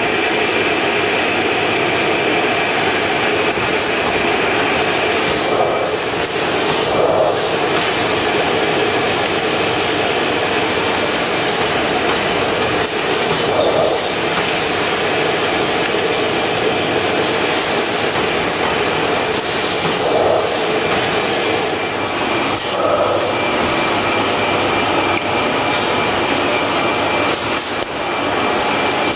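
Automatic shopper bag making machine running: a steady mechanical whirr with a constant high whine, and a short swish every few seconds as it works the sheets through.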